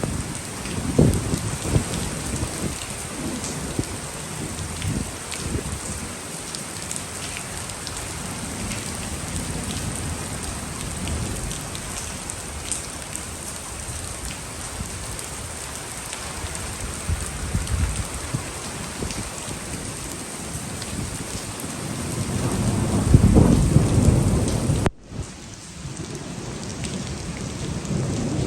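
Heavy rain pouring steadily, with rolling rumbles of thunder; the loudest, longest rumble comes near the end, just before the sound briefly drops away and returns.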